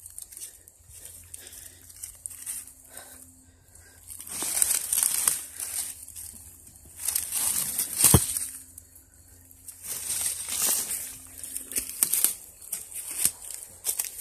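Dry leaf litter rustling and crunching in several bursts as it is stepped on and pushed about by hand, with one sharp knock about eight seconds in.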